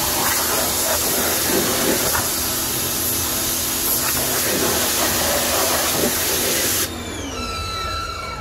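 Pressure-washer wand spraying a steady high-pressure jet onto a wheel rim and tyre, rinsing off acid wheel cleaner. The spray cuts off suddenly near the end, followed by a falling whine.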